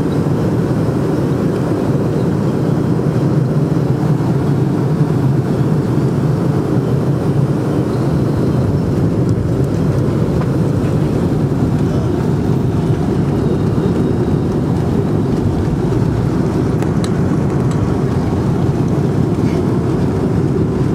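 Steady cabin rumble inside a Boeing 757-200: engine and airflow noise heard from a window seat, even in level throughout.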